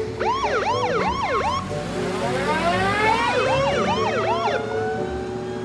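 Police siren yelping in quick rising-and-falling sweeps, about two to three a second. Midway a second, slower siren wail rises over it, then the quick yelping carries on.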